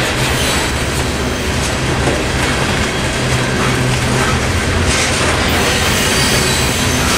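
Coal hopper cars of a Norfolk Southern freight train rolling through a railroad crossing: a steady, loud noise of steel wheels on the rails, with clickety-clack and some wheel squeal.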